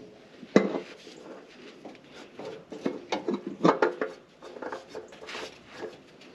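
Short metallic clinks and knocks as a new spin-on oil filter is threaded by hand onto the engine's filter mount, the sharpest about half a second in and a cluster of them around three to four seconds.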